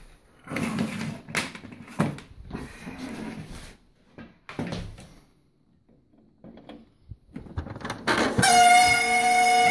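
Knocks and rustles of handling, then about eight seconds in an HP LaserJet 1200's laser scanner motor starts a loud, steady squeal of several fixed pitches. The squeal is the sign of a dry laser scanner motor that needs lubricating.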